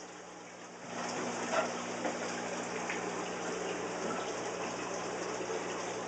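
Water running and splashing steadily through a saltwater aquarium system, with a steady low hum underneath. It is quieter for about the first second, then picks up and holds steady.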